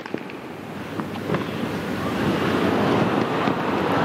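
Tennis ball struck by rackets a few times in a short rally, sharp pocks in the first second and a half, then crowd noise swelling up and holding as the point is won.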